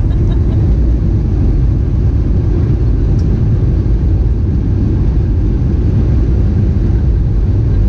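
Cabin noise of a Boeing 737-800 on its landing roll, heard from a seat over the wing: a loud, steady rumble of the wheels on the runway and the engines.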